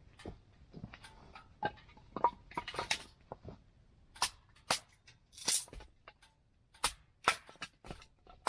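Wood fire crackling in a small tent stove as it is being lit: irregular sharp snaps and pops, a few much louder than the rest.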